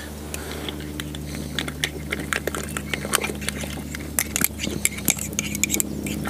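A spoon clinking rapidly and irregularly against a mug as a brew of tea is stirred hard, over a steady low hum.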